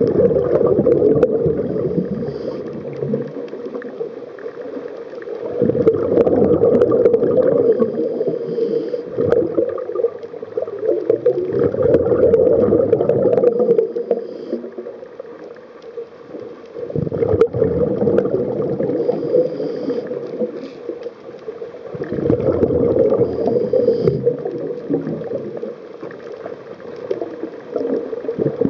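Scuba diver breathing through a regulator underwater: exhaled bubbles gurgle in loud swells about every five to six seconds, with quieter stretches between breaths.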